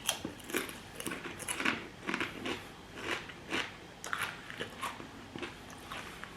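A person chewing ridged potato crisps (OLW Sweet Chilimayo), a steady run of crisp crunches at about three a second.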